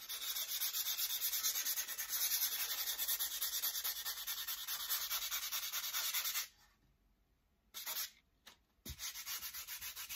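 Sandpaper rubbed by hand over a painted picture frame in rapid back-and-forth strokes, lightly sanding back dry-brushed paint. The strokes stop about six and a half seconds in and, after a pause with a couple of brief scuffs, start again near the end.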